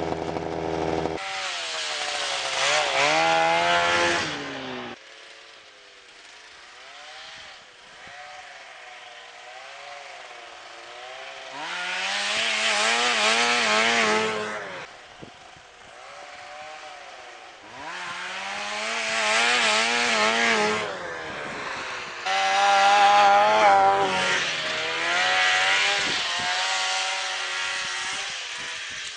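Vintage two-stroke snowmobile engines revving as sleds race past, their pitch rising and falling with throttle. Several loud passes, with quieter engine sound between them.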